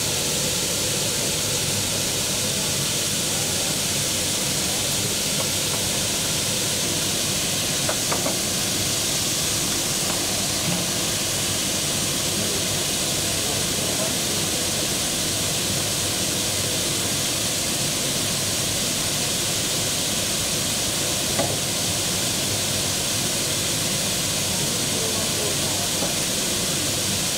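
Steady, even hiss with a couple of faint clicks.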